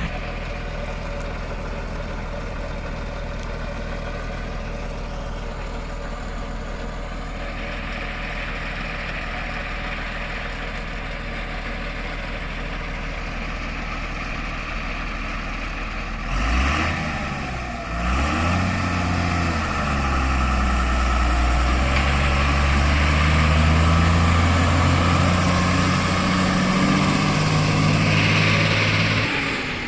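Heavy diesel engine idling steadily, then revving about halfway through with its pitch swinging up and down, and running louder under load for the rest.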